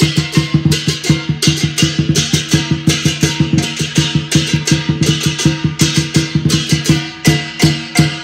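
Southern Chinese lion dance percussion: a large lion dance drum beaten in a fast, steady rhythm, with hand cymbals crashing and a gong struck along with it.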